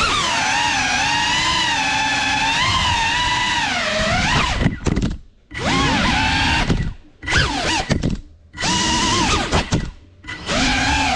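Brushless motors and 3.5-inch ducted propellers of a GEPRC Cinelog 35 cinewhoop FPV drone whining, the pitch rising and falling with the throttle. From about four and a half seconds in, the motors cut out several times, dropping nearly silent, and spin back up each time.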